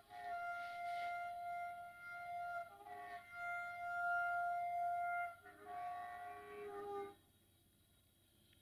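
Locomotive two-tone horn sounding a sequence of long blasts: a high note held about two and a half seconds, a brief lower note, the high note again for about two seconds, then the lower note for about a second and a half, cutting off sharply.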